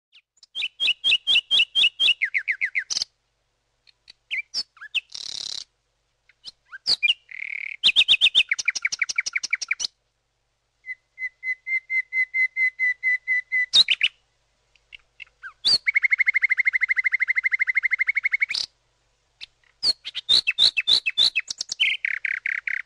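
Common nightingale singing: about six phrases of fast repeated notes and trills, each a couple of seconds long, with short pauses between them. One phrase about two-thirds of the way through is a longer, even trill.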